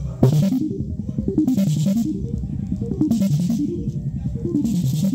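Music played through a car sound system: a drum beat over a bass line that climbs and falls in pitch, with a cymbal hit about every one and a half seconds.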